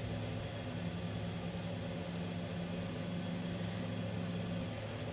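Steady low machinery hum with a few constant tones over an even background hiss.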